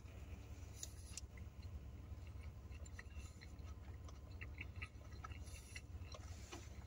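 Faint chewing of a burger: soft, scattered mouth clicks and crackles over a low, steady hum.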